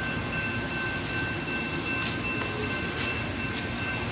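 Amtrak diesel-hauled train heard close up: a steady rumbling run with a steady high whine over it. A few short sharp clicks come about two and three seconds in.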